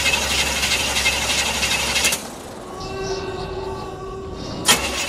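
Pickup truck engine running just after being started, a loud, even rumble. About two seconds in it drops away to a quieter stretch with a faint steady hum. Near the end it cuts back in with a sharp click.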